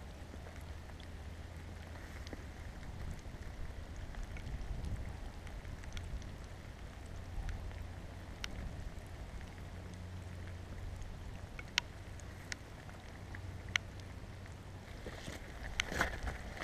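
Light rain falling, with a steady low wind rumble on the microphone and a few sharp, isolated ticks of drops striking it. Near the end, louder rustling right at the microphone.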